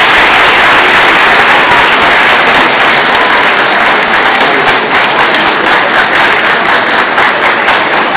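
A large crowd applauding, the clapping thinning into more separate, distinct claps from about four seconds in.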